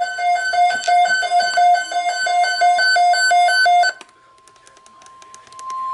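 Weather-radio alert tones. First, an electronic alarm alternates rapidly between a low and a high note, about three cycles a second, and cuts off about four seconds in. Then a single steady tone, the NOAA Weather Radio warning alarm tone, comes up faint and grows loud near the end.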